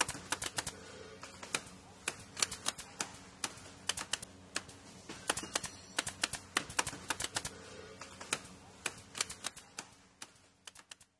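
Typewriter sound effect: rapid, irregular key clacks, thinning out near the end, over a faint music bed.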